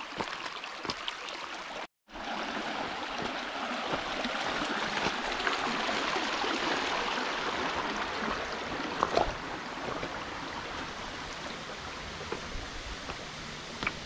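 Shallow stream running and babbling over stones, a steady rush of water that breaks off for a moment about two seconds in and is fullest in the middle. A few sharp knocks stand out, the loudest about nine seconds in.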